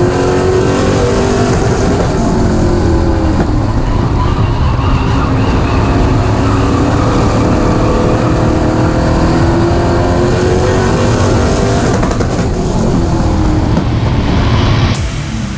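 Late model stock car's V8 engine running hard on track, its revs falling and rising again as it goes through the corners. The sound drops away abruptly near the end.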